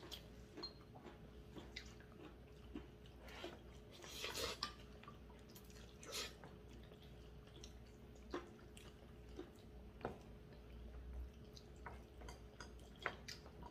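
Quiet table eating sounds: scattered light clicks of chopsticks and spoons against bowls, chewing, and a short slurp of glass noodles about four to six seconds in, over a faint steady hum.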